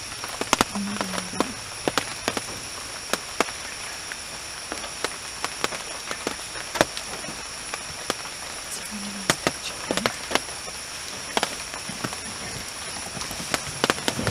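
Forest ambience: a steady high-pitched insect drone, with scattered sharp clicks and snaps throughout. A brief low hum comes about a second in and again about nine seconds in.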